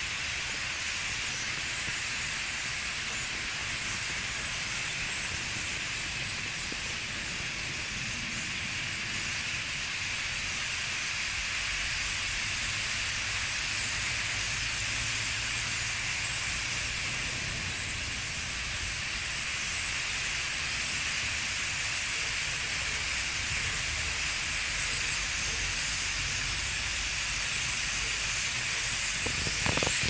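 A large roost of common starlings chattering together in the trees: thousands of birds merging into one dense, steady hiss-like din.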